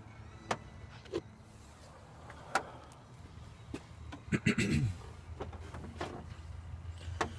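A few scattered sharp clicks and taps from hand work on hoses, clamps and fittings in an engine bay, over a low steady hum, with a brief low grunt about four and a half seconds in.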